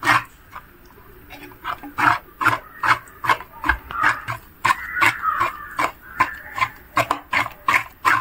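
Thick cornflour-and-chilli batter being beaten with a ladle in a clay pot, making wet squelching slaps. There is one slap at the start, then after about two seconds a quick run of them at about three a second.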